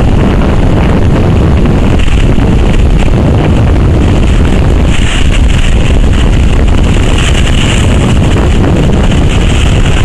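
Strong wind buffeting the microphone, a loud steady rumble, over rough storm surf breaking on the shore, with a hissing swell about five seconds in and again near eight seconds.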